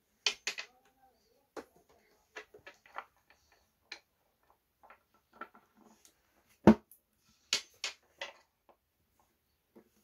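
Irregular clicks and knocks from a folding laptop table's top panels being handled and shifted, with one heavier knock a little before the seven-second mark.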